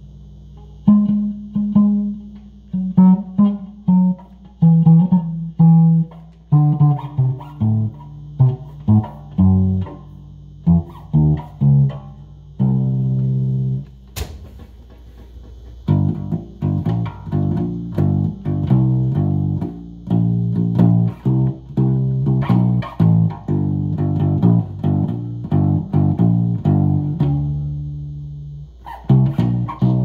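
Two-string box bass, built from a C.B. Gitty kit, plucked with the fingers: random single low notes, each ringing briefly. About halfway there is a pause of a few seconds with a single click, then the notes come quicker and closer together.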